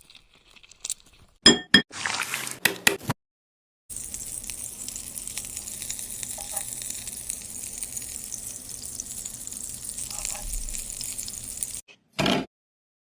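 A few sharp clinks and a short scraping noise, then, after a brief gap, a steady sizzle of food deep-frying in hot oil lasting about eight seconds. It is followed by one short, louder burst near the end.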